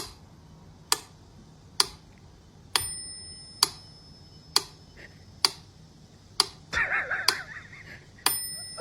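Sharp clock-like ticks at an even pace, just under one a second, some followed by a brief ringing tone. A short wavering sound comes about seven seconds in.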